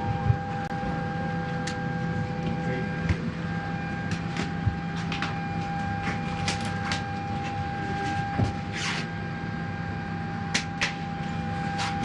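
Steady hum inside a parked airliner's cabin, with a constant whine, and scattered sharp clicks and knocks through it.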